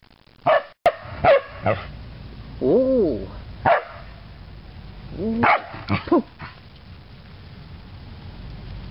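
Dog barking in short sharp barks, about six of them, with two longer yowling calls that rise and fall in pitch, about three and five and a half seconds in, as the dogs play.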